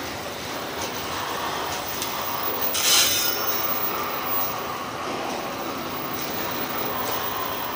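Container wagons of a freight train rolling past, with a steady noise of steel wheels on the rails. About three seconds in comes a brief, high screech of wheel squeal, the loudest moment.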